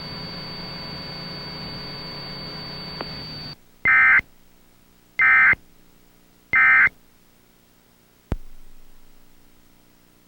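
Emergency Alert System end-of-message data signal: three short, loud bursts of digital data screech, about a second and a half apart, closing the test broadcast. Before them a steady high whine and hum cut off, and a single sharp click follows near the end.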